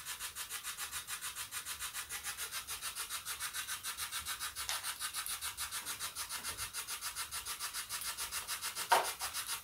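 Spirit box sweeping through radio stations: a steady hiss of static chopped into about six even pulses a second, with one short louder burst near the end.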